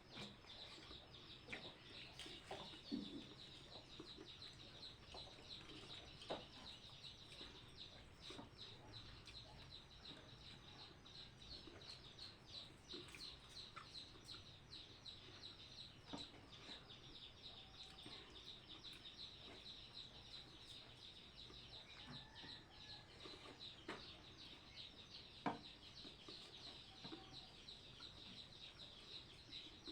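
Faint rural background: a steady, high, fast-pulsing chirr, with a few faint bird calls that resemble chickens clucking and a few soft clicks.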